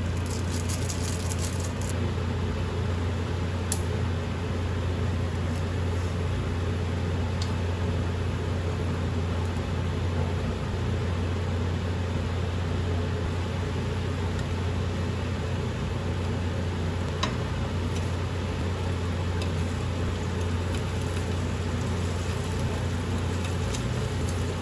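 A household appliance hums steadily in a low, even drone, likely a microwave oven running. A few faint clicks sound over it.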